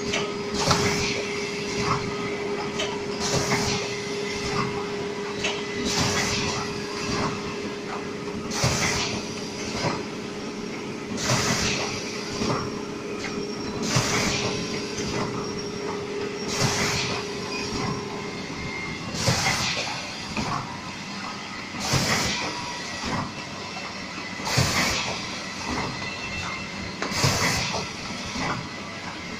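Automatic tea bag packing machine running: a steady mechanical clatter with a short hissing burst about every two and a half seconds as each cycle comes round. A steady hum under it stops about two-thirds of the way through.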